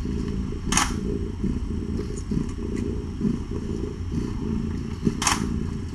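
Calico mother cat purring steadily, a continuous low rumble, while nursing her kittens. Two brief rushing noises cut in, about a second in and near the end.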